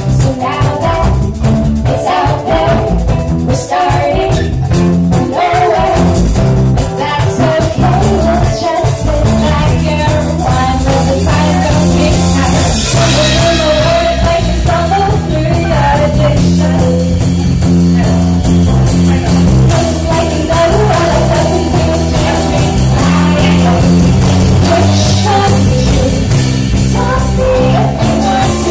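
Live band playing a song: guitar and drum kit with women singing lead and backing vocals into microphones.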